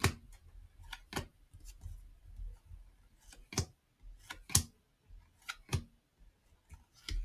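Panini Hoops basketball trading cards handled one by one from a pack: cardboard cards sliding against each other, with sharp snaps and clicks at irregular intervals, about one a second.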